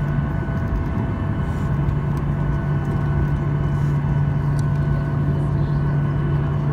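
Steady cabin drone of a Boeing 737-800 taxiing on idling CFM56-7B engines, heard from a window seat: a strong low hum with faint, steady whining tones above it.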